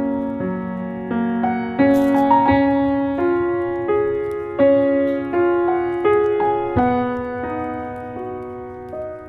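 Background piano music: a slow melody of struck notes, each ringing and fading before the next.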